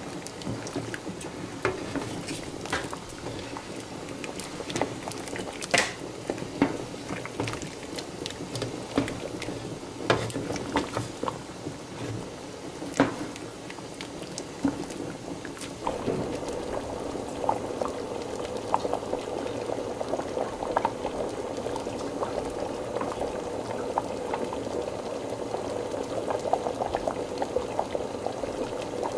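A pot of thick Jamaican red peas soup boiling, bubbling with scattered sharp pops. About halfway through, the bubbling turns steadier and fuller.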